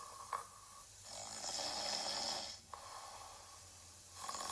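A person imitating a bear snoring. A louder snore on the in-breath runs from about one to two and a half seconds in, followed by a quieter out-breath with a faint whistle, and the next snore begins at the very end.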